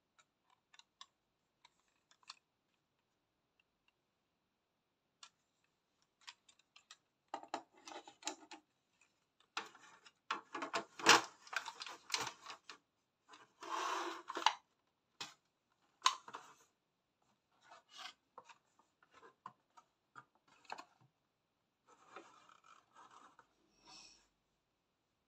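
Handling noise of a small model bus being fitted into the moulded plastic tray of its box: a few light clicks, then plastic scraping and rubbing in bursts, loudest about halfway through, with a last rustle near the end.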